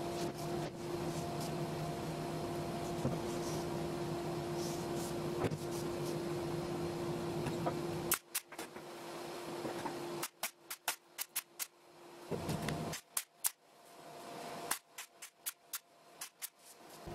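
A steady mechanical shop hum, then, from about halfway, a pneumatic pin nailer firing sharp shots into MDF panels in quick runs of several shots each.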